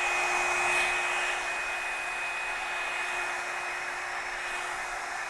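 Revlon One Step hot-air dryer brush running steadily: an even rush of blown air with a thin high whine and a fainter low hum from its motor.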